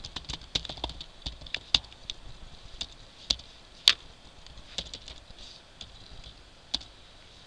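Typing on a computer keyboard: irregular key clicks, thick at first and sparser later, with one sharper keystroke about four seconds in.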